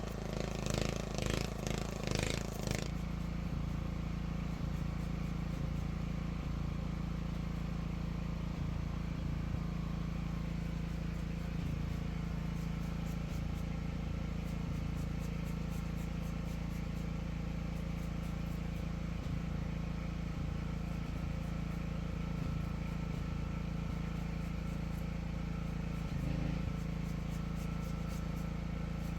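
An engine running steadily with a low, even drone. It is busier for the first three seconds or so, with a clattering of knocks over it.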